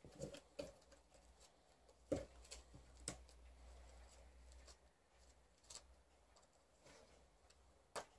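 Near silence broken by a few faint, scattered clicks and rustles as hands handle a cardboard box and the small items being unpacked from it.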